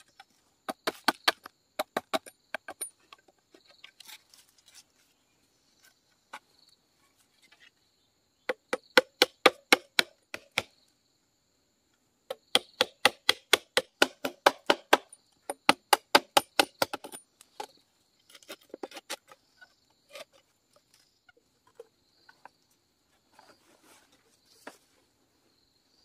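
Machete and knife blade cutting into a green bamboo tube in quick runs of short, sharp strokes, about four or five a second, with pauses between the runs.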